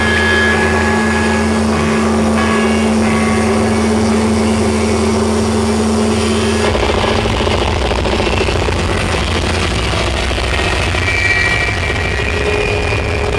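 Loud live hardcore punk band, electric guitar and bass through amplifiers, heavily distorted on the camera microphone. A held guitar note drones until about seven seconds in, then gives way to a denser, rougher wash of band noise.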